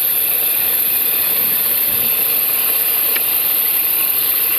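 Range Rover Sport engine idling with a steady chattering 'char-char' noise from the front belt drive, with a hiss over it. Water on the belt does not silence it, the sign of a bad pulley or tensioner bearing rather than the belt; the mechanic traces it to the alternator's freewheel pulley.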